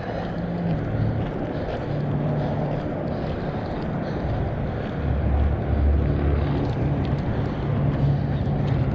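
Steady low rumble of road traffic with wind on the microphone; a deeper rumble swells about five seconds in.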